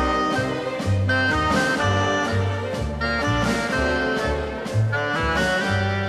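Background instrumental music with a steady beat and a bass line moving from note to note about twice a second.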